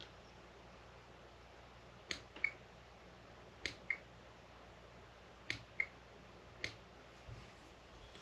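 Small sharp clicks and taps of tools and the vise while a crappie jig is tied, mostly in pairs about a third of a second apart, the second of each pair often with a short metallic ring.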